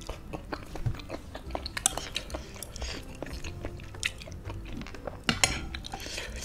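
Close-up mouth sounds of chewing a mouthful of spicy noodles in sauce: many quick, wet smacks and clicks, with a louder cluster of clicks about five seconds in.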